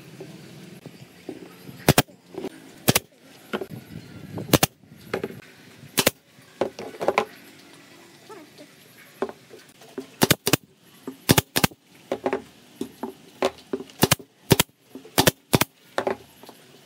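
Brad nailer firing nails into the corners of a pine frame: about a dozen sharp shots with pauses between them, several coming in quick pairs near the end.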